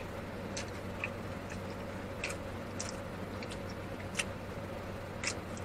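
Wet mouth clicks and smacks of someone chewing food, scattered irregularly, over a steady low hum in the car cabin.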